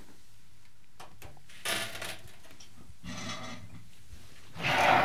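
Handling noise from the opened metal chassis of a MikroTik CRS320 rack switch being moved on the table: three short rubbing and rustling sounds, the loudest just before the end.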